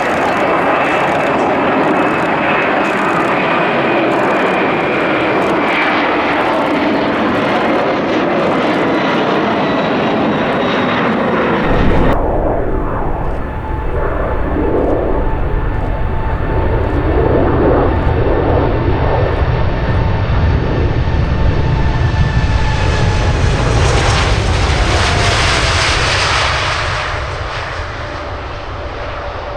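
Large aircraft engines passing close by, their tone slowly falling. About twelve seconds in the sound changes abruptly to another aircraft with a deeper rumble, which swells and then fades as its engine tone drops near the end.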